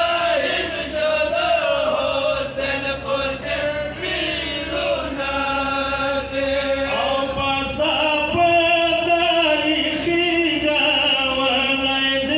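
A group of men chanting a Pashto nauha (mourning lament for matam) together, amplified through microphones, in long held melodic lines that step from note to note.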